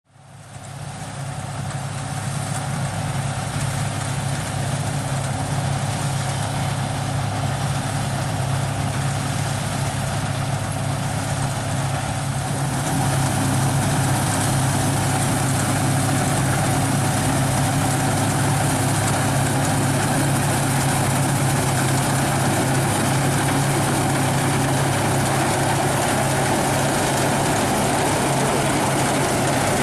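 Claas Dominator 106 combine harvester running steadily with its diesel engine droning and machinery clattering, fading in at the start and growing louder about 13 seconds in.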